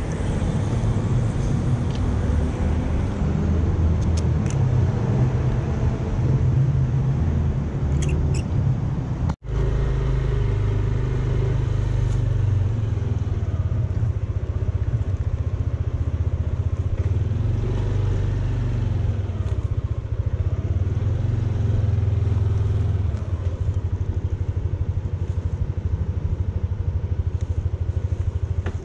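Yamaha motor scooter running while being ridden along a street, its engine sound mixed with heavy low wind rumble on the microphone. The sound cuts out for an instant about nine seconds in.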